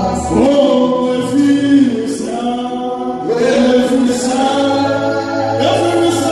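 Men singing a slow worship song into microphones, holding long notes and sliding from one pitch to the next.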